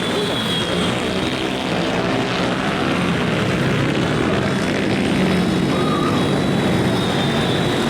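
Motorbike traffic: many engines running together in a steady drone.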